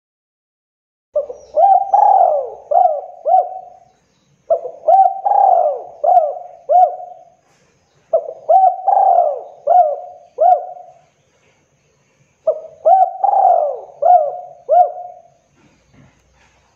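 Spotted dove cooing: four phrases, each a quick run of four or five coos that hook up and fall back, with short pauses between the phrases.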